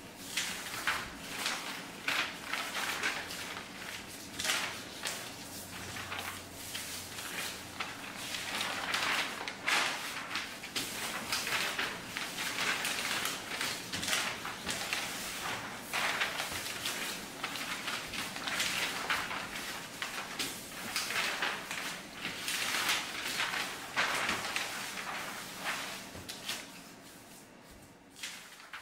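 Sheets of paper rustling, sliding and crinkling as hands press, sweep and gather them across a wooden floor, in uneven swells; it cuts off suddenly at the end.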